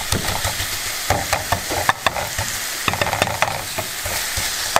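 Seasoned steak sizzling in a nonstick frying pan, with a utensil repeatedly clicking and scraping against the pan as the meat is moved around.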